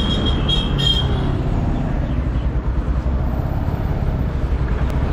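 Motorcycle engine running at low speed amid road traffic noise, with a few short high beeps in the first second.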